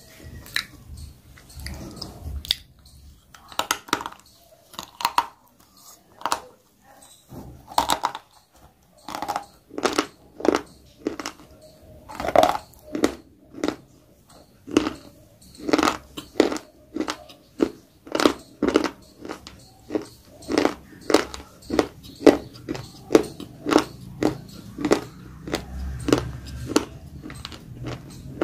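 Close-miked chewing of crunchy food, a run of crisp crunches. They come irregularly at first, then settle into an even rhythm of about one and a half crunches a second through the second half.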